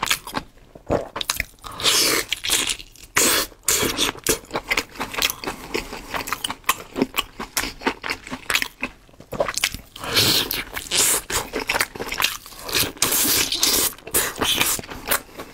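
Close-up sounds of a person eating: repeated bites and wet chewing and mouth smacking in quick, irregular bursts.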